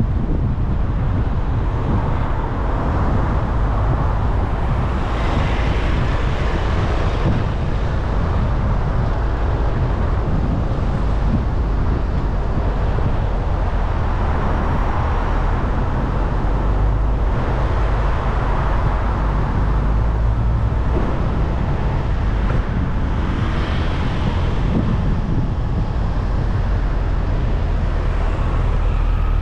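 Car driving through city traffic: a steady low road rumble with traffic noise around it, swelling twice.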